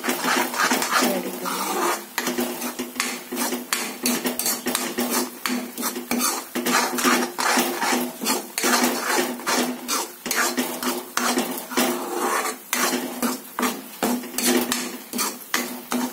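Metal spoon scraping and knocking against a kadhai in repeated irregular strokes, a few a second, as a thick spice paste is stirred and roasted (bhuna) until the oil separates. A steady hum runs underneath.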